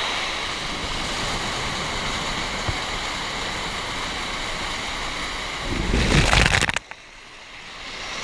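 Water rushing and cascading over rocky terraces of a waterfall close to the microphone, a steady rush. About six seconds in, a louder burst of noise cuts off suddenly, leaving a quieter stretch that builds back up.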